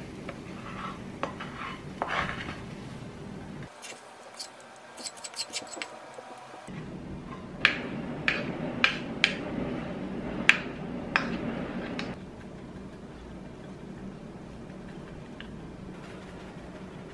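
A wooden spoon scraping fried rice out of a nonstick frying pan onto a ceramic plate, then a run of about seven sharp clicks as the spoon knocks against the plate to free the last grains of rice.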